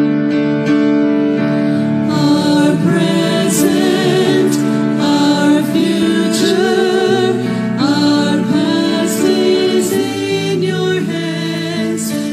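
Women singing a gospel song with vibrato over grand piano accompaniment; the voices come in about two seconds in over held piano notes.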